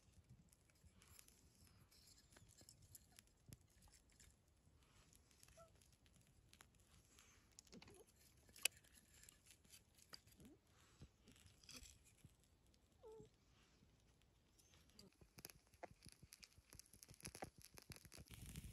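Near silence with faint scattered clicks and short rustles, and one sharper click about nine seconds in.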